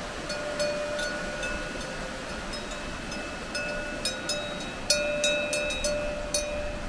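A cowbell on a grazing cow's collar clanking as the cow moves its head, a few scattered strikes at first and then several quick clanks a second from about halfway through, each ringing on. A mountain stream rushes steadily behind.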